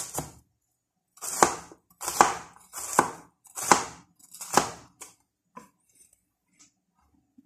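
Chef's knife chopping red onion finely on a plastic cutting board: about six firm chops a little under a second apart, then a few faint taps in the last two seconds.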